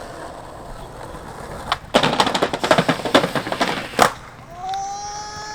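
Skateboard wheels rolling on concrete, then about two seconds in the board clatters and scrapes across an obstacle for about two seconds, ending in one sharp clack. A steady held tone starts near the end.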